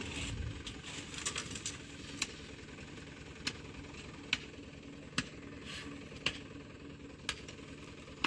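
Dump truck engine idling steadily, with sharp knocks at irregular spacing about once a second from a hoe chopping at the mud around the truck's stuck rear wheel.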